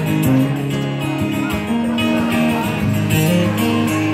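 Acoustic guitar strummed and played through a small PA speaker, an instrumental stretch of a song with chords that change every second or so and no singing.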